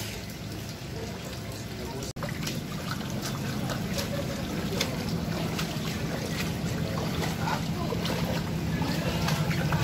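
Heavy rain falling on a flooded alley, with water running and splashing in many small sharp spatters over a low steady rumble.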